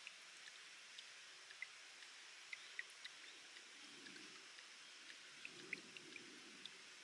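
Spring water trickling over rock with a steady hiss, and irregular small drips plinking into water.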